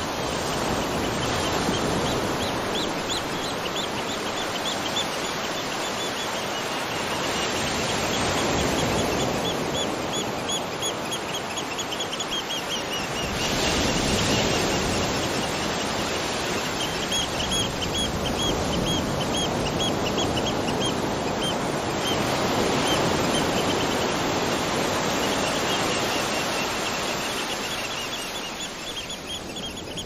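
Steady rush of falling water and rain, with runs of rapid, high-pitched chirping over it that come and go every few seconds.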